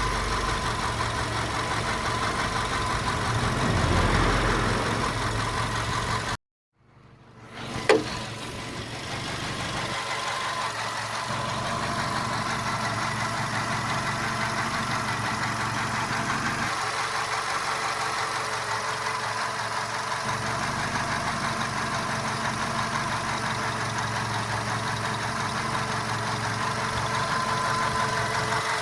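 Volkswagen Golf Mk5 engine idling with a knocking sound from the engine. The sound cuts out about six seconds in, then returns with one sharp click and runs on steadily.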